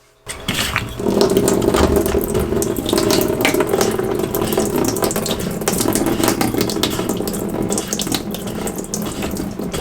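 Water pouring out of a front-load washing machine's drain filter opening and splashing into a catch container as the filter cap is unscrewed: the standing water that the washer failed to pump out. It starts about a quarter second in, grows fuller about a second in and then runs steadily.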